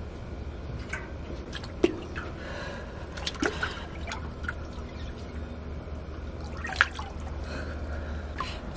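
Water sloshing and dripping in a cold-plunge tub as a person climbs in and sinks down into it, with a few short knocks and splashes, the sharpest about two seconds in and again near seven seconds.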